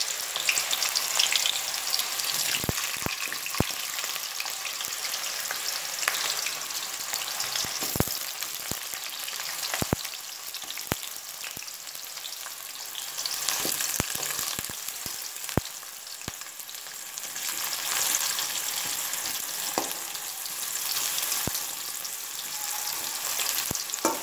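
Raw plantain slices deep-frying in hot oil: a steady sizzle with scattered sharp pops and crackles.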